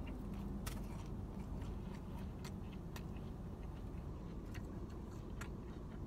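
Eating sounds: scattered small clicks and crackles from chewing and from hands picking at a sandwich and its wrapping, over a steady low hum.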